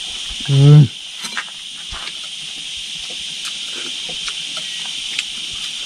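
Insects droning steadily in a high, even haze. About half a second in, a man makes one short voiced sound, the loudest thing here. Light scattered clicks run through it.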